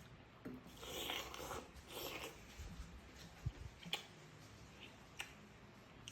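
A person chewing pempek, the chewy Palembang fish cake: soft, wet mouth sounds in two stretches in the first half, then a few sharp clicks.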